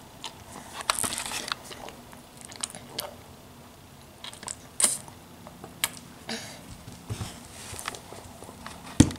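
A baby chewing a cracker and sucking on a plastic sippy cup, small irregular clicks, crunches and mouth sounds, with a louder knock near the end.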